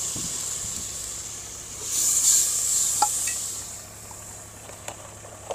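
Onion, chilli and spice masala sizzling in a pot over a wood fire as it is stirred, the hiss swelling about two seconds in, with a few light clinks of the stirring spoon near the end.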